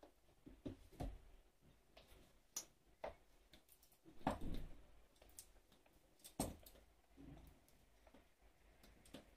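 Scattered light clicks and soft knocks of a camera sling strap being handled, its buckles and swivel-connector fittings tapping together, with the cardboard product box set down on the tabletop near the start. The loudest knocks come about four and about six seconds in.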